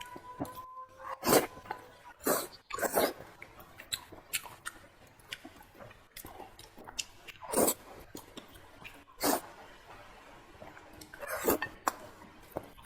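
Close-miked eating sounds from someone eating fatty pork belly with pickled cabbage: wet chewing and lip smacks full of sharp clicks, with several louder, longer mouth sounds scattered through.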